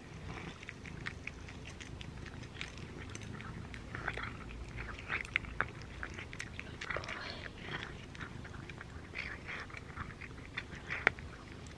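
Cat chewing and eating food from a bowl: irregular wet smacks and small crunching clicks, several a second.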